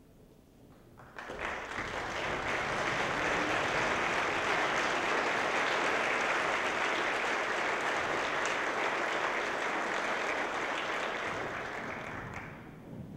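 Audience applauding: the clapping breaks out suddenly about a second in, holds steady, and dies away near the end.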